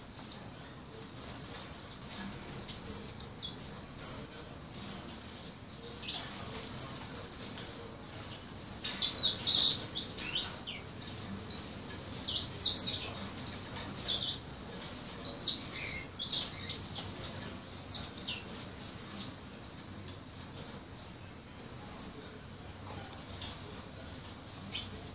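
Young caged songbird practising its song: a rambling run of quick, high chirps and twitters from about two seconds in until about twenty seconds, then a few scattered notes. It is a fledgling's practice song, not yet polished.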